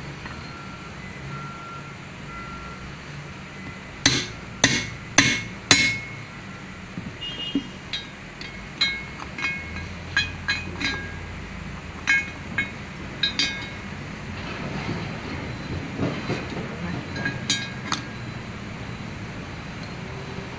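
Four sharp metal knocks about half a second apart, then a string of lighter metallic clinks with a brief ring, as a steel drift and parts are worked inside the bore of a Komatsu engine water pump housing. A reversing beeper sounds faintly in the first few seconds, over a steady low hum.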